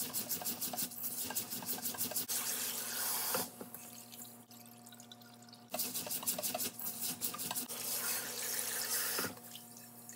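Rice being washed by hand in water in a stainless steel bowl in a sink: rapid swishing and rubbing of the wet grains in two spells, with a quieter pause of about two seconds between them.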